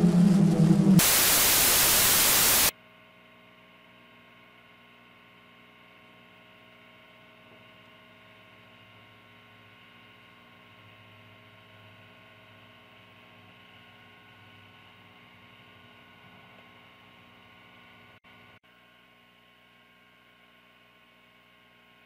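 A low droning tone breaks off about a second in, replaced by a loud burst of TV static that cuts off suddenly under two seconds later, the sound of a broadcast going dead. A faint steady electrical hum follows, dropping out briefly near the end and then going quieter.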